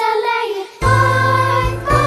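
Music: a children's Christmas song with singing. It breaks off briefly a little before the middle and comes back in with held notes.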